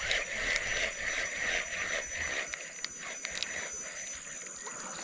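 Spinning reel being cranked, its gears and line rolling in a rhythmic whirr of about three turns a second that stops about halfway through, followed by a few light clicks.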